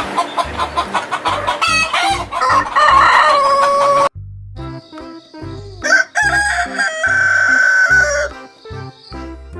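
Rooster crowing twice: the first crow starts a little under two seconds in and cuts off abruptly about four seconds in, and the second starts about six seconds in and holds a long steady note. A repeating low beat of background music runs underneath.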